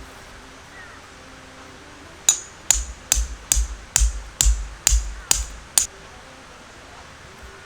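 A run of about nine sharp knocks, a little over two a second, each with a dull thump beneath. They start a couple of seconds in and stop suddenly.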